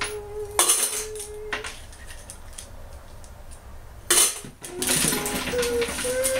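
Loose nails clattering and clinking against a homemade magnetic nail sweeper as it is swept over them on a wooden bench, loudest in two sharp bursts, about half a second in and about four seconds in. Background music with held notes runs under it at the start and end.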